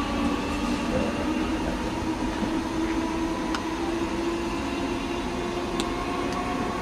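Class 315 electric train pulling away, its traction motors giving a steady whine that rises slowly in pitch as it gathers speed, with a few faint clicks.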